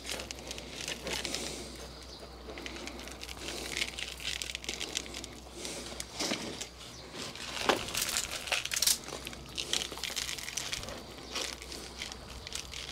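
Potting soil mix rustling and trickling as it is tipped out of a small plastic plant pot around a repotted fig, with plastic pots handled in gloved hands and a few short light knocks and crackles.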